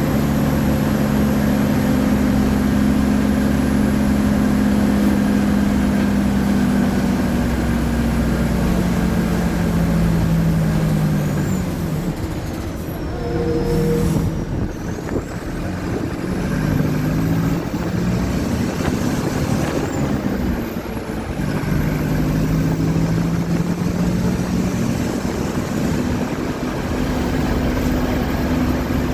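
Mercedes-Benz OF-1722M bus's four-cylinder turbodiesel engine running under way. It holds steady, drops in pitch as it slows about ten seconds in, then revs up and down twice as the bus pulls away again. It settles to a steady run near the end.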